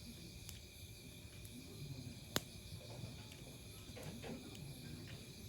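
Crickets chirping steadily in the background, with one sharp click about two seconds in and a faint low murmur underneath.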